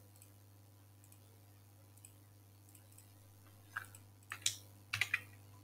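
Faint steady hum of room tone, then a few short, sharp clicks spread over about a second and a half near the end.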